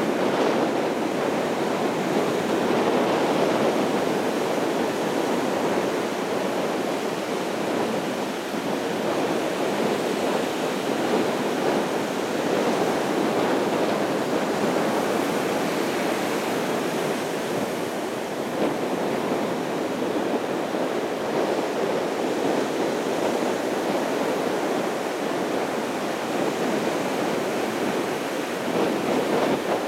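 Surf washing onto a sandy beach: a steady rushing noise that swells and eases slowly.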